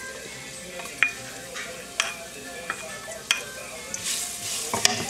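Minced garlic sizzling in hot oil in a nonstick frying pan, with a wooden spatula tapping and scraping against the pan several times as the garlic is stirred.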